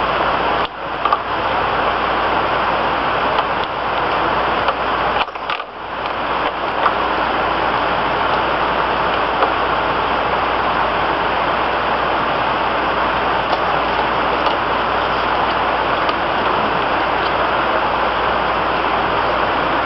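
Steady, loud hissing noise, even and without pattern, that drops away briefly twice: about a second in and again around five seconds in.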